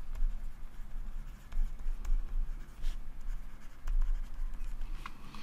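Stylus scratching across a tablet screen as words are handwritten, a run of short, faint strokes.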